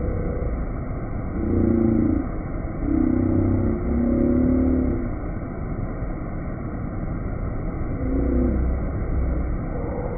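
Rushing whitewater of a spring-fed river: a steady low rush that swells louder a couple of times, around two to five seconds in and again near eight seconds.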